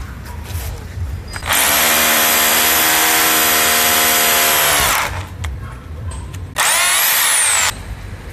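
Rotary hammer drilling into a concrete block with a small 3/16-inch SDS Plus bit: the motor spins up, runs steadily for about three and a half seconds and winds down. About a second and a half later it runs again briefly for about a second, its pitch rising and then falling away.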